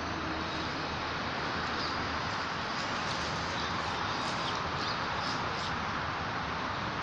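Steady outdoor background noise, with a few faint, short high chirps or squeaks about two to five seconds in.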